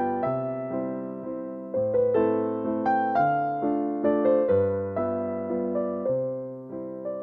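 Background piano music: a gentle melody of struck notes that ring and fade, about two a second.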